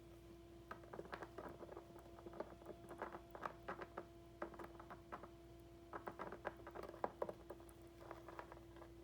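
Hamster eating: faint, quick crackling clicks of nibbling, coming in clusters with short pauses, over a steady low hum.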